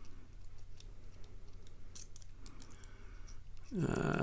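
Faint, irregular metallic clicks and scratches of a lock pick and tension wrench working the pins inside a padlock's keyway while the picker hunts for binding pins.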